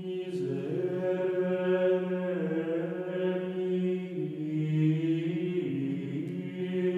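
Background music: a slow sung chant, voices holding long notes over a steady low drone, the melody above it moving slowly from note to note.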